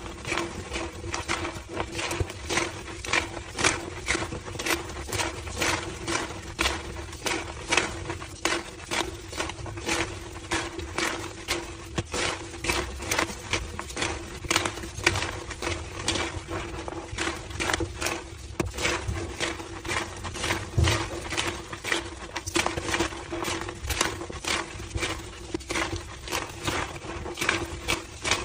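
Homemade gym chalk slabs being crushed by hand, a steady run of squeaky crunches, several a second.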